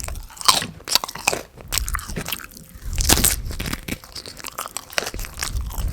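A person biting and chewing crunchy food close to the microphone: irregular crunches and mouth noises.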